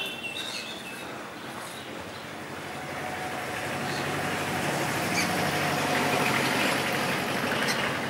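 Road traffic: a motor vehicle's engine and tyre noise swelling from about three seconds in and loudest in the second half, with a faint steady whine.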